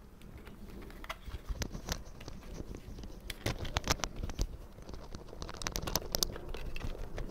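Plastic CD jewel case being opened and handled: a string of small clicks and light taps as the disc is taken out.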